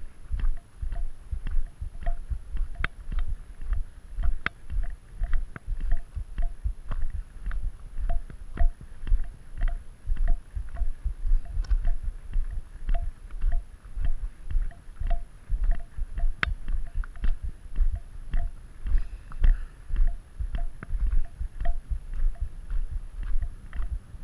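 A hiker's footsteps crunching on a gravel road at a steady walking pace, about two steps a second, each step with a low thump.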